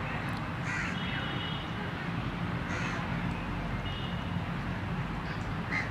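Outdoor ambience: a steady low rumble with a few short crow caws scattered through it, about a second in, near the middle and near the end.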